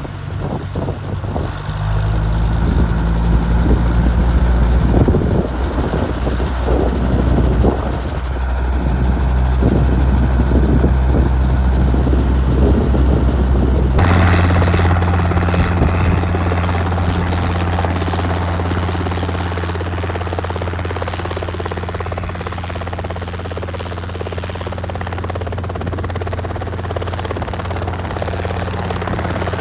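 Small helicopter in flight with its doors off: a steady engine and rotor drone, with wind rumbling on the microphone. About halfway through the sound changes abruptly: the drone becomes stronger and steadier and the wind rumble drops away.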